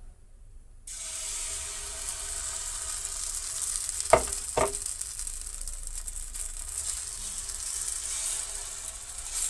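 Moong dal batter sizzling as it hits hot melted ghee in a pan: a steady hiss that starts suddenly about a second in. Two sharp clinks come about four seconds in.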